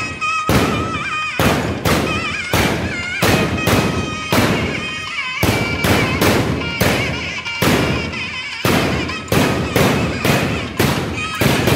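Kathina vedi, a long row of small iron firework tubes set in the ground, going off one after another in a rapid chain of loud bangs, about two a second with a few brief pauses.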